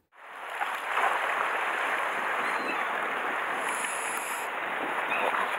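Steady rush of sea waves washing over a rocky shore.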